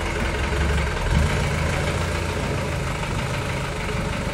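Passenger jeepney's engine idling steadily.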